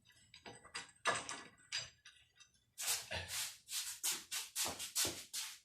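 Metal hand tools clinking and tapping at a tight suspension nut: a few separate knocks, then a quicker run of strokes about three a second from about three seconds in.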